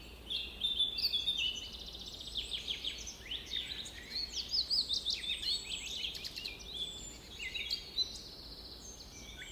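A chorus of small songbirds chirping and singing over one another, with quick high chirps, downward-sweeping notes and rapid trills.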